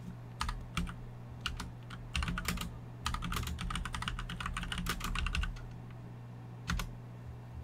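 Typing on a computer keyboard: a quick run of keystrokes for about five seconds, then a pause and a single key press near the end, the Enter that runs the typed command.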